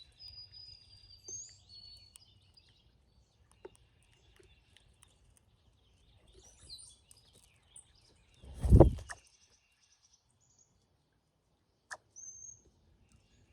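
Brown-headed cowbirds giving thin, high gliding whistles and short chirps, several in the first two seconds and a few more later. A loud low thump comes about two-thirds of the way in.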